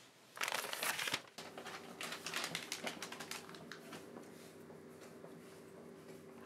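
Paper being picked up off a desk and rustled: a loud crinkling burst about half a second in, then a run of lighter crackles and taps that die down. A steady low hum runs underneath.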